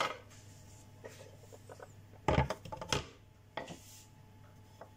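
Wooden knocks and clatter on a stone countertop as a knife and bamboo cutting board are cleared away and a wooden rolling pin is set down. There are a few separate sharp knocks, the heaviest a little over two seconds in.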